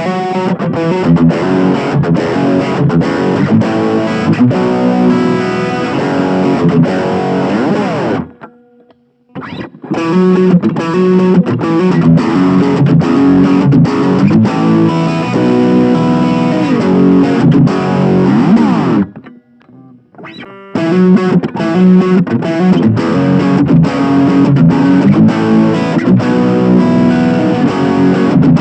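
PRS Custom 22 electric guitar played through a Blackstar Fly 3 mini amp's overdrive channel: distorted chords and riffs in three phrases, with two brief pauses between them.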